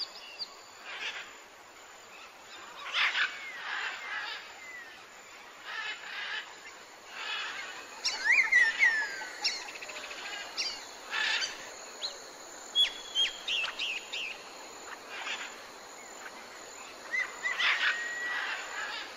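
Birds chirping and calling: many short chirps and quick down-sweeping whistles, irregular and overlapping, over a steady faint background hiss.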